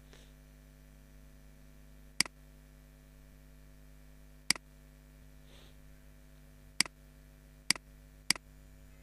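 Five sharp computer mouse clicks, spaced unevenly, the last three close together near the end, over a steady electrical hum.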